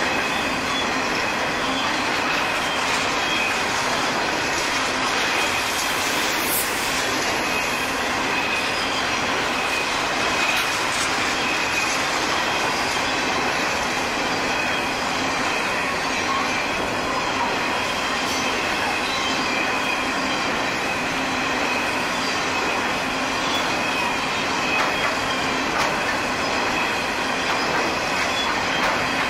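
Long rake of freight hopper wagons rolling past at speed: a steady wheel-on-rail rumble, with a thin, steady high-pitched tone over it.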